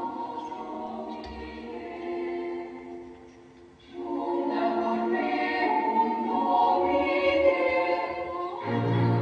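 Film soundtrack music with a choir singing long held chords. It fades almost away about three and a half seconds in, swells back up, and a deep held note comes in near the end.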